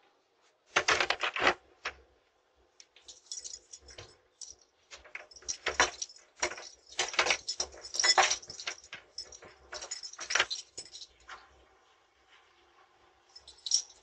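A bunch of keys jangling close to the microphone in short rattling bursts: once about a second in, then repeatedly for several seconds, and again near the end.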